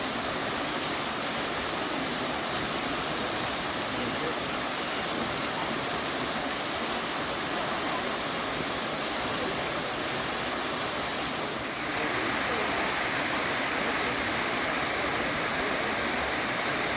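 Steady rushing and splashing of a cascading mountain stream. About twelve seconds in, the sound changes abruptly to a slightly louder, brighter rush of water.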